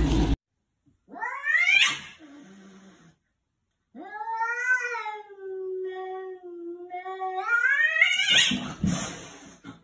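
Domestic cat yowling: a short rising yowl, then a long drawn-out caterwaul that holds its pitch and then rises near the end. It is a territorial warning at another cat.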